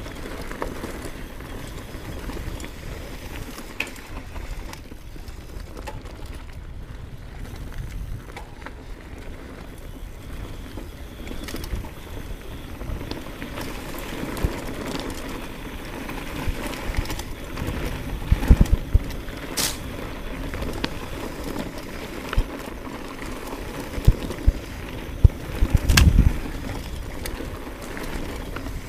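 Hardtail mountain bike rolling over a grassy dirt trail: steady tyre and wind noise, with sharp knocks and rattles from the bike over bumps, several of them in the second half.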